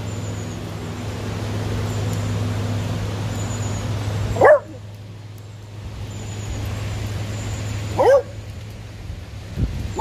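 Beagle giving two short, high yelping barks about three and a half seconds apart, over a steady low hum.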